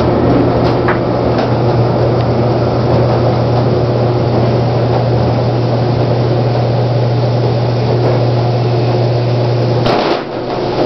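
Inside a Millar traction elevator car: a steady low hum with a rushing noise. The hum cuts off with a sharp clunk about ten seconds in, as the car stands at the top landing.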